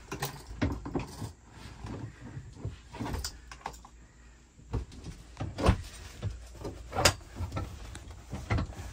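Irregular knocks and clunks of a recliner sofa's backrest being slid down onto its side tracks and snapped into place, a few sharper clunks in the second half.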